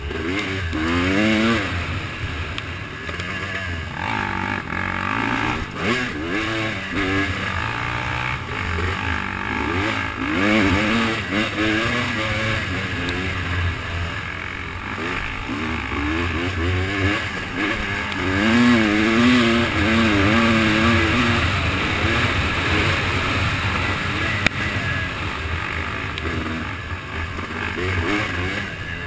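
Off-road vehicle engine revving up and down again and again as it is ridden along a trail, over a steady rushing noise, with the strongest throttle bursts about ten seconds in and again around eighteen to twenty-one seconds in.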